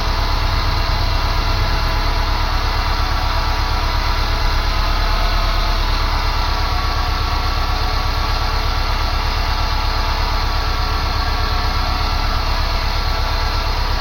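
1999 Subaru Forester S/TB's turbocharged flat-four engine idling steadily on fresh oil, just after an oil change.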